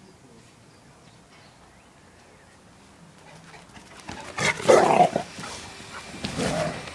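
A dog vocalising loudly twice, about four seconds in and again about six seconds in, the first burst longer and louder.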